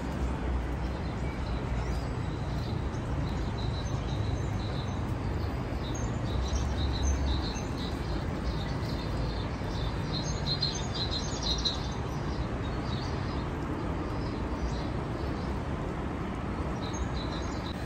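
Small birds chirping in quick bursts of short, high notes, busiest in the middle stretch, over a steady hiss and low rumble.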